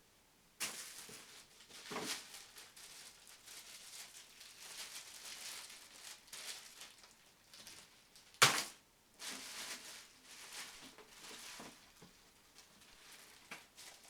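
Packaging being handled during an unboxing: irregular rustling and crinkling, with one sharp knock about eight seconds in.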